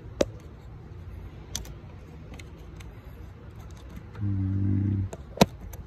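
Pick and wrench clicking against a transmission cooler line's quick-connect fitting while its retaining spring clip is worked out: three sharp metal clicks over a low background rumble, with a short, steady low hum just after four seconds in.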